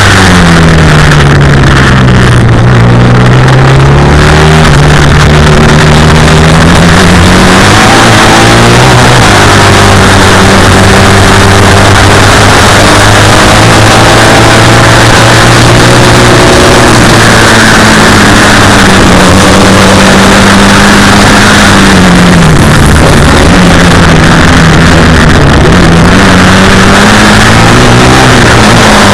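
Classic racing sidecar outfit's engine running hard and very loud. Its note falls as it slows over the first few seconds, climbs back up, holds high through the middle, and dips and rises again a few times near the end.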